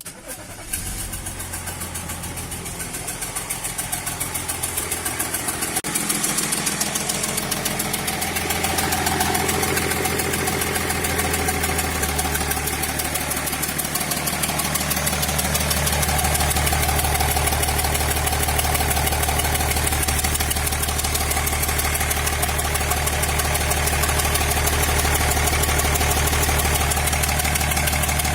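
BMW E39 530d's straight-six diesel starting and then idling steadily with a regular knock. The knock persists after the sixth injector was replaced.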